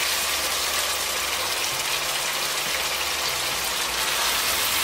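Meat pieces and yogurt sizzling steadily in a frying pan as the curry is fried down, over a low steady hum.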